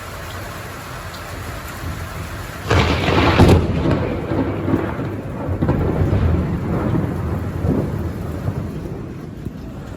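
Thunder over steady rain: a sudden loud clap with a sharp crack nearly three seconds in, then a low rumble rolling on for several seconds and slowly fading.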